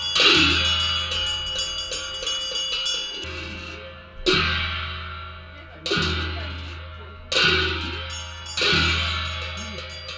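Music with loud sudden crashes at uneven intervals, about every one and a half seconds in the second half, each ringing out slowly over a steady low hum.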